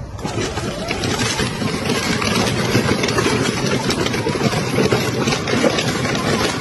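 Ride-on toy tractor and trailer rolling over a gravel road: hard plastic wheels crunching and rattling on the stones in a steady, coarse noise.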